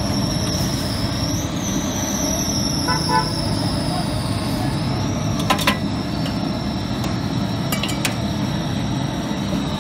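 Street-food stall noise: a steady low rumble of traffic and a constant high whine, with a short toot about three seconds in. A metal spatula clinks sharply on the steel griddle, twice about halfway through and once more near the end.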